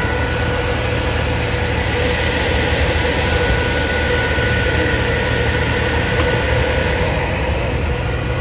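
A steady, loud engine drone with a constant low rumble and a few fixed whining tones over it, holding the same pitch and level throughout with no rise or fall.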